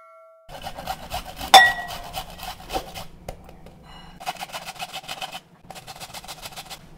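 A white onion being grated on a metal grater over a glass bowl: quick rasping strokes in runs with short pauses. There is a single sharp clink about one and a half seconds in.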